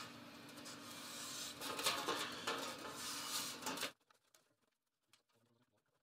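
A marker rubbing in scratchy strokes on 18-gauge sheet steel as the outline of a cardboard template is traced. The sound cuts off suddenly about four seconds in, leaving near silence.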